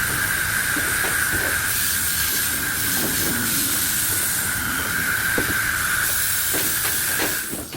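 High-pressure washer spraying water through a spray lance fitted with a size-1.5 nozzle tip: a steady, loud hiss that cuts off shortly before the end.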